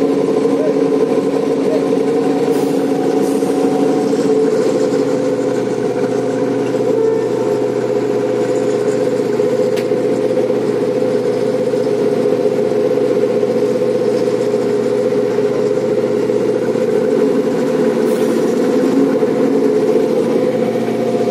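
The vessel's diesel engines running with a steady, unbroken drone.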